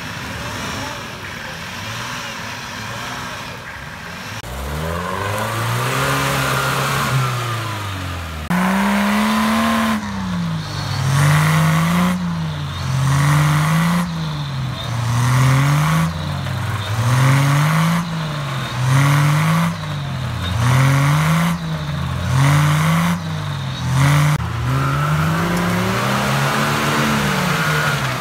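Off-road 4x4 engines revving hard: one long rev up and back down, then after a cut a run of repeated surges, each rising and falling about every second and a half, as a vehicle strains against a tow strap in the mud.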